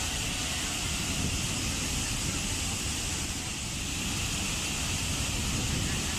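Waterfall: water falling steadily, a deep low rumble under an even bright hiss.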